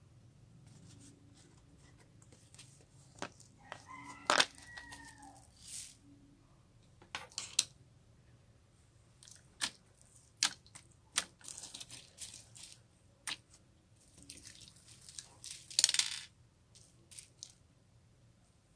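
Slime being mixed and squished, giving scattered sharp pops and clicks and short crackling bursts, the loudest about four seconds in and near the end.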